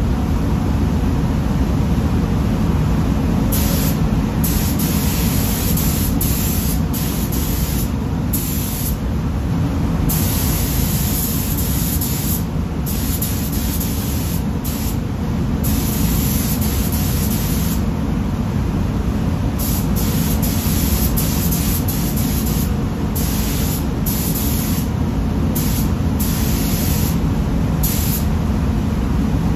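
Automotive paint spray gun hissing in repeated on-off bursts of a second or two as the trigger is pulled for each pass, starting a few seconds in. Beneath it runs the steady low rumble of the spray booth's air.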